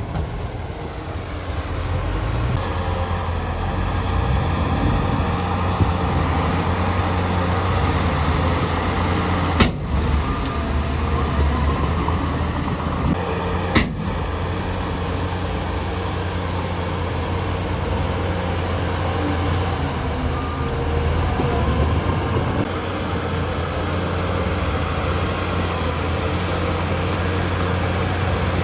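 Heavy diesel engines of earthmoving machines running steadily under load, with a strong low hum. Two sharp knocks stand out, about ten and fourteen seconds in.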